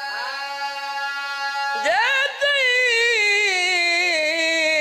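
A man's voice chanting a verse through a microphone in long, drawn-out, wavering notes, with a new held note starting about two seconds in.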